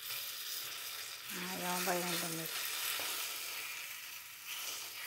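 Sugar bubbling and sizzling as it browns in a hot frying pan, while a rice cake is rolled through it with a fork. The sugar is not yet melted enough to stick to the cake.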